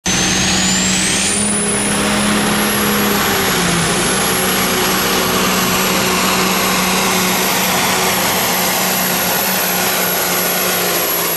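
Pulling semi truck's diesel engine running loud and flat out under load, with a high turbo whistle that rises over the first second or so and then holds steady.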